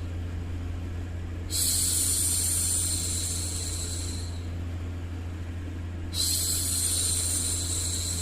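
A woman's voice making long hushing 'shhh' sounds to soothe a baby, twice: one lasting about three seconds, then another starting near the end. Under them runs a steady low hum.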